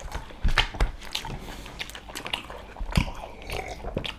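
Close-up eating sounds of people eating rice and curry by hand: chewing and mouth smacks with scattered short clicks.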